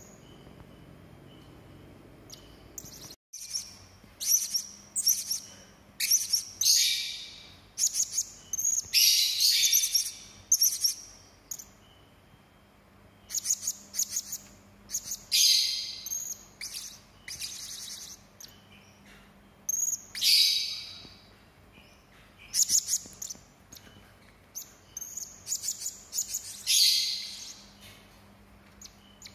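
Hanging parrot (serindit) giving sharp, harsh, high-pitched calls in repeated bursts of quick notes with short pauses between. The calls start after a brief dropout about three seconds in.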